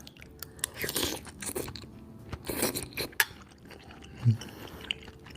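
Close-miked mukbang eating sounds: a person biting and chewing a mouthful of spicy bakso (Indonesian meatball soup) in short wet bursts, with a few sharp mouth clicks. A brief low thump about four seconds in is the loudest sound.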